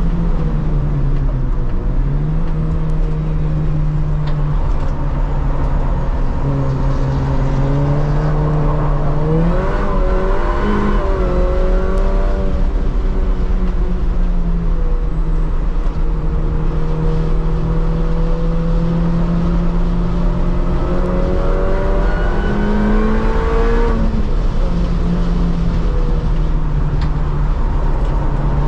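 Cabin sound of an R53 Mini Cooper S's supercharged 1.6-litre four-cylinder engine driven hard on track, under heavy road and wind rumble. The engine note holds steady for long stretches, climbs about ten seconds in and again past twenty seconds, and drops back sharply after each climb.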